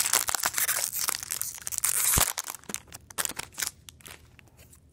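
Foil wrapper of a 1999 Donruss football card pack being pulled open and crumpled by hand: dense crackling for about two seconds, then a few scattered crinkles before it stops.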